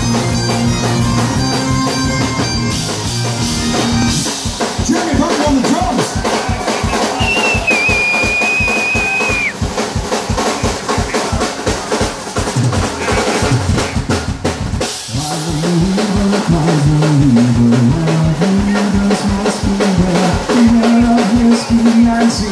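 Live Celtic rock: Great Highland bagpipes playing over electric guitar and a rock drum kit, with a steady driving drum beat.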